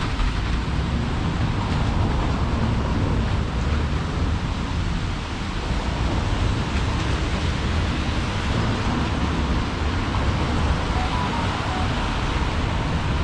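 Steady city street traffic noise: a continuous wash of passing cars with a heavy low rumble and no single event standing out.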